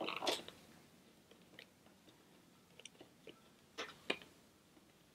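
Faint rustling and crinkling of thin ribbon and a laminated paper bookmark being handled and knotted by hand. A louder crackle comes at the start, then scattered light clicks, with two sharper ones close together near the end.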